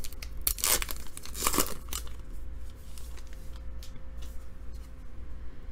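A trading-card pack wrapper being torn open and crinkled, loudest in the first two seconds, followed by fainter rustles and light clicks as the cards are handled.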